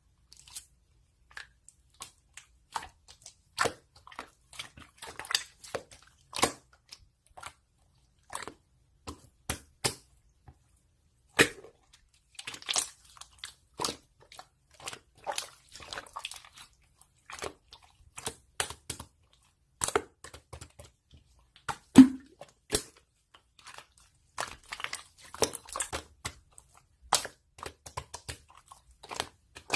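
Irregular close-up clicks and crunchy crackles, scattered unevenly with short gaps between them, and one louder knock about twenty-two seconds in.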